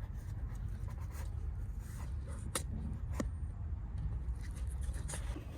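Parts being handled: light rubbing and scraping with two sharp clicks, about two and a half and three seconds in, over a low steady rumble.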